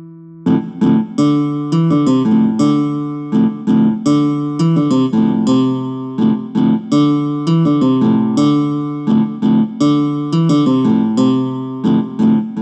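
Ringtone tune: a light melody of short, sharply struck notes that die away, over a steady lower line. It starts after a brief gap about half a second in.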